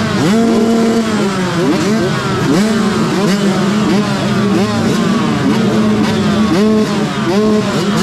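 A row of motocross bikes revving at the start gate: many engines blipped up and down again and again, overlapping, over one engine held at steady revs close by, the rider's own Yamaha YZ125 two-stroke. This is the revving of a line of bikes waiting for the gate to drop.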